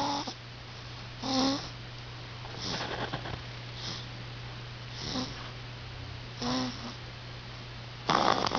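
One-month-old baby snoring in his sleep: short, squeaky pitched snores with each breath, about one every second and a half, the last one near the end louder and rougher. A steady low hum lies underneath.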